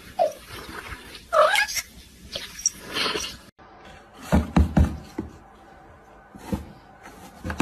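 A domestic cat meows once, a short rising call about a second and a half in. After a cut come a few dull thuds, near the end of the first half and again about five seconds in.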